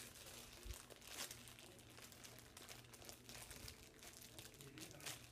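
Faint, irregular crinkling and rustling of packaging being handled, likely the BeanBoozled jelly bean box or wrappers being opened.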